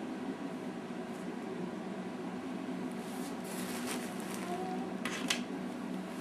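Steady room hum, with brief rustling noises about three seconds in and two sharper rustles about five seconds in.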